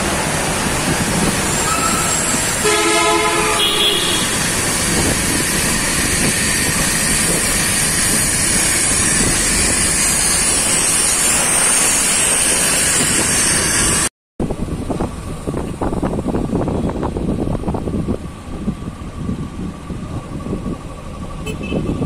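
Dense road traffic noise with a vehicle horn sounding once for about a second, roughly three seconds in. The sound drops out briefly about 14 seconds in, then quieter, more broken-up traffic noise follows.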